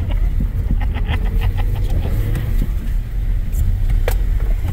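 Cabin noise of a BMW iX M60 electric SUV driving hard on a wet autocross course: a steady low rumble from tyres and road, with scattered light clicks and a faint whine.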